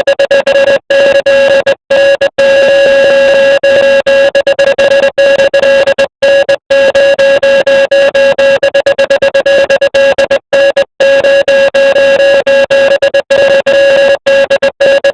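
Morse code: a loud, steady electronic tone keyed on and off rapidly, sounding most of the time with many short breaks between the signals.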